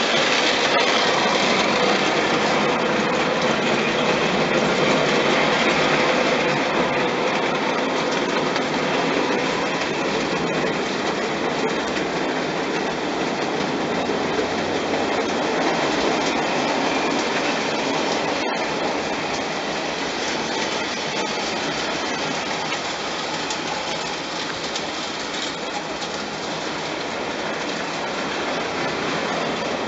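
Märklin gauge 1 tinplate model train, an HR Pacific locomotive pulling two coaches, running on tinplate track. Its metal wheels make a steady clatter. The clatter is loudest as the train passes close at the start, fades as it runs away around the layout, and grows a little near the end as it comes back.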